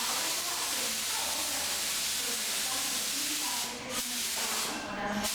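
Paint spray gun hissing steadily as it sprays true-flame paint onto a car hood, the trigger let off briefly about four seconds in and again near the end.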